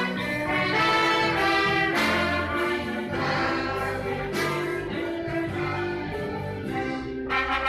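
Orchestra playing a slow piece in long held chords that change every second or two.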